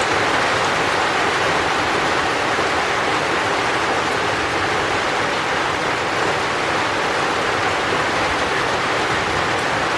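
Steady heavy rain, an even hiss with no distinct drops or thunder.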